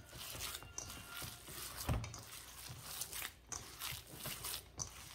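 A hand kneading and squeezing raw beef-mince chapli kebab mixture in a stainless steel bowl: irregular soft rustling strokes, with a dull thump about two seconds in.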